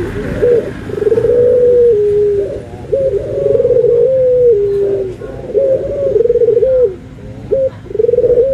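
Domestic ringneck dove (puter) cooing repeatedly close up: a series of low coos, each about a second to a second and a half long and dropping in pitch toward its end, with a few short notes in between.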